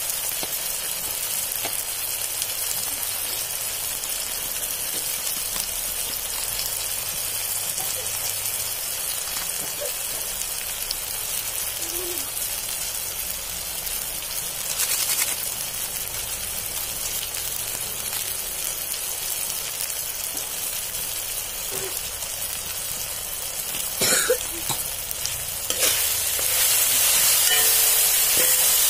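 Chopped onions and tomatoes sizzling in oil in a metal kadai, with a steel spoon stirring and knocking against the pan a few times. The sizzle grows louder near the end.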